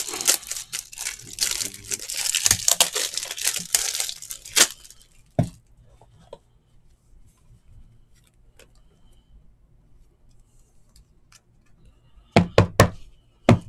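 Plastic wrapping of a pack of 3x4 toploaders crinkling and tearing as a toploader is pulled out, for about five seconds. Then a few sharp clicks near the end as the card is handled in its rigid plastic toploader.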